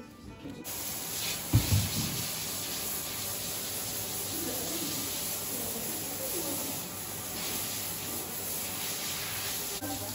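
Hose spray nozzle spraying water onto a horse, a steady hiss that starts about half a second in, in a small tiled wash bay. A single thump about a second and a half in.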